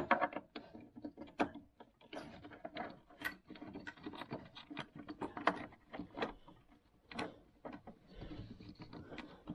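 Steel roller chain and gears of a Polaris snowmobile reverse chain case clinking and rattling in irregular light clicks as they are handled and worked onto the shafts.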